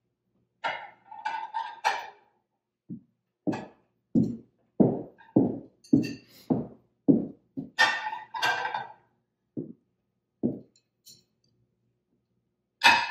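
Ceramic salad plates clinking as they are set down one at a time on top of ceramic dinner plates. There are short bright clinks near the start, about two thirds of the way in and at the end, with a string of dull knocks in between.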